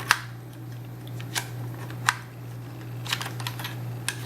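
Camera flash speedlite being handled and its foot fitted onto its stand base: about half a dozen light clicks and taps at irregular intervals, over a steady low hum.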